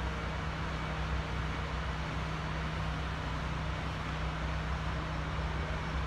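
Steady low engine hum with a rushing noise over it, unchanging throughout.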